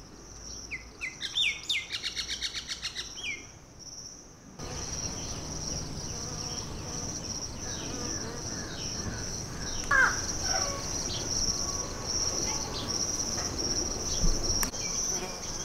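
Small birds chirping and trilling for the first few seconds, then a steady high-pitched insect drone with scattered bird calls over it.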